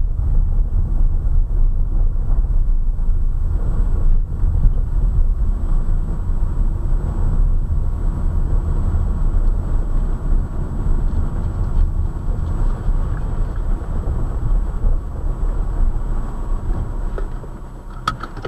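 Car driving downhill, heard from inside the cabin: a steady low rumble of engine and tyre noise on the road surface, with a few short clicks near the end.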